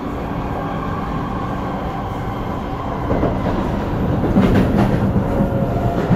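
Cabin noise inside a C751B MRT train car running between stations: a steady rumble of wheels on rail and running gear, with a few steady tones in it. It gets louder about four seconds in, with a short spell of rattling.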